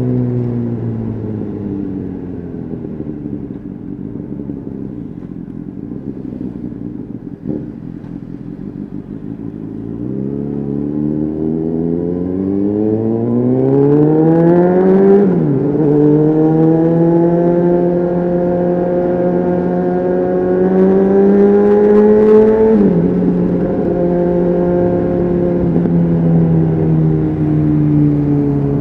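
Honda CBR600RR inline-four sportbike engine through a Leo Vince exhaust, heard on board. The revs fall off and sit low for several seconds, then climb hard to a sudden drop at a gear change about halfway through, climb again, and drop at a second shift before easing off near the end.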